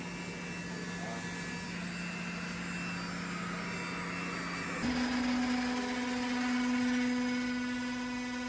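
A GFJ-22KW high-speed mixer's 22 kW electric drive running steadily at full speed (60 Hz): a continuous motor hum. About halfway through, the hum jumps to a higher, louder steady pitch.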